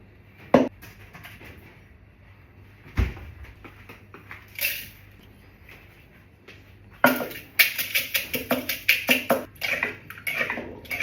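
A sharp knock, then a dull thump, then a quick run of about a dozen sharp knocks or clacks, about four a second, in the last few seconds.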